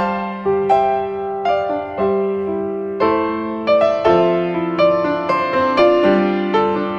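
Background piano music: a slow melody of struck notes over sustained chords, each note starting sharply and fading away.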